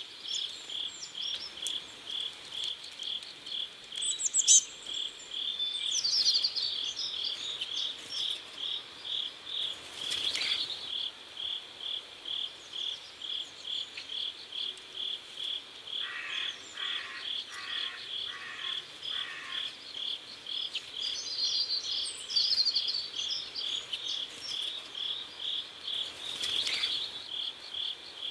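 Crickets chirping in a steady, even rhythm of about two and a half chirps a second, with scattered bird chirps over them twice.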